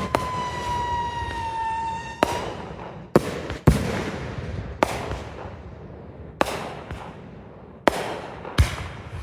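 Consumer fireworks going off: about eight sharp bangs at irregular spacing, a second or so apart. A high whistle sounds for the first two seconds, falling slightly in pitch.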